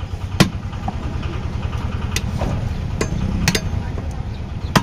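Cleaver chopping meat on a wooden log block: about five sharp chops at uneven intervals, the first about half a second in, then a gap of over a second, then several more in the second half, two of them close together. A steady low rumble runs underneath.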